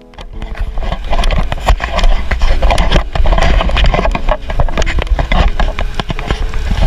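Wind rumbling on the microphone and a dense rattle of clicks and knocks from a camera mounted on a moving bicycle, rising within the first second and then staying loud.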